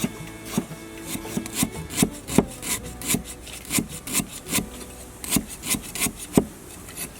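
Repeated scraping or rubbing strokes on a wooden surface, about two or three a second and uneven, each ending in a short knock.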